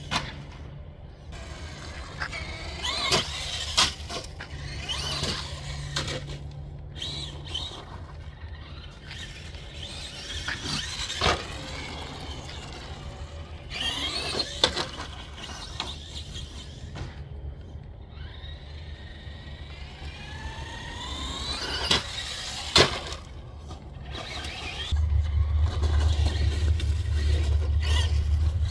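Electric motor and metal-gear transmission of an ECX AMP MT 1/10-scale RC truck whining up and down in pitch as it speeds up and slows on test drives, with several sharp knocks. A low steady rumble comes in near the end.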